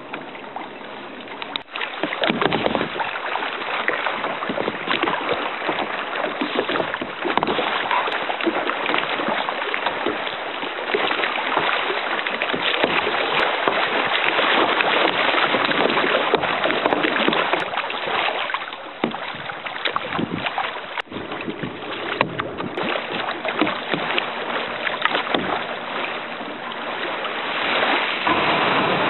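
Choppy lake water splashing and slapping against a kayak's hull, with wind buffeting the microphone and a few sharp knocks.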